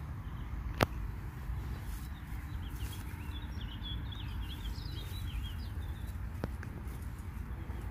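Faint, high twittering of a small songbird in the middle, over a low, steady outdoor rumble, with one sharp click just under a second in.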